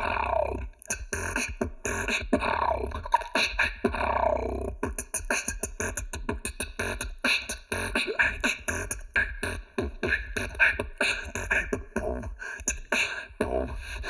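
Solo beatboxing: a fast, rhythmic run of mouth-made kick, snare and hi-hat sounds, with some sliding pitched tones woven in.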